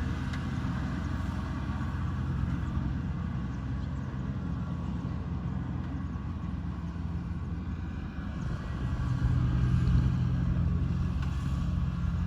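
Kubota rice combine harvester's engine running steadily with a low hum, getting louder about eight seconds in.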